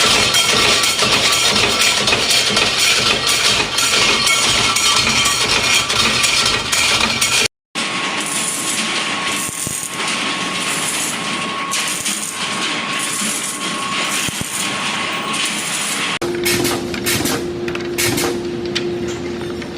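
Production machinery running in three separate clips. The sound cuts off abruptly about seven and a half seconds in and again about sixteen seconds in. The middle clip carries a steady high whine, and the last a steady lower hum with a run of sharp clicks.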